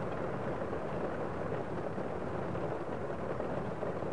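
Steady rain ambience, a dull, low rushing noise with no separate thunderclaps or drops.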